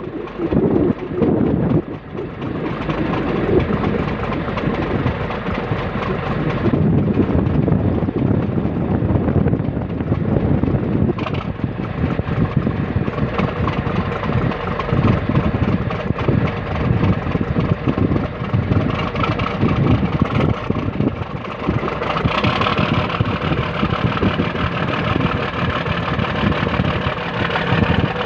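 Tugboat's diesel engines running steadily during berthing manoeuvres, a loud, constant rumble heard from the aft deck below the exhaust stacks.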